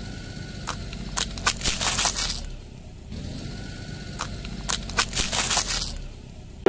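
A car tyre rolling over a row of dry wafer ice cream cones and crushing them: two runs of sharp cracks and crunches, one in the first half and one in the second, over the low rumble of the slow-moving car.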